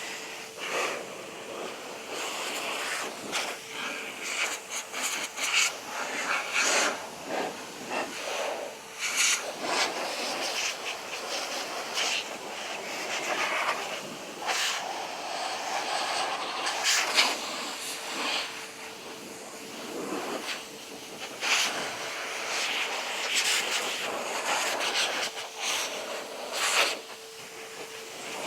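Air blower drying a freshly washed motorcycle: a continuous rush of air that swells and fades as the blast is swept over the bike, with a steady whine underneath.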